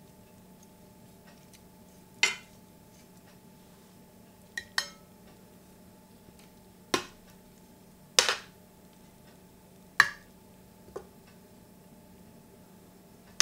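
Metal serving tongs clinking against a stainless steel pan and a ceramic plate while plating food. About seven separate sharp clinks, one to two seconds apart, over a faint steady hum.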